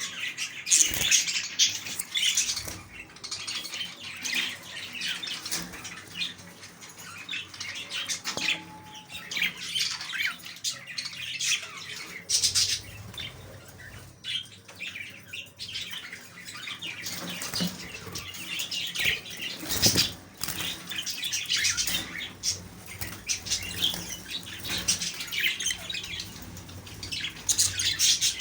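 A flock of king-size (English) budgerigars chattering and chirping continuously, with many short bursts of wing flapping.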